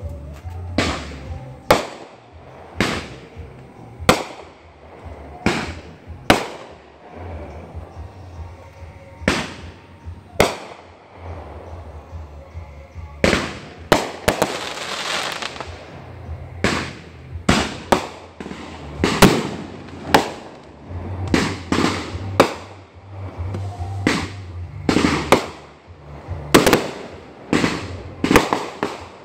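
Aerial fireworks going off: an irregular string of sharp bangs, one or two a second, each with a short ringing tail. About halfway through comes a denser crackling hiss.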